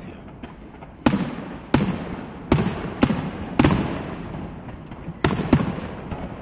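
Aerial fireworks shells bursting: about seven sharp booms, the first about a second in and several close together, each trailing off in an echoing rumble.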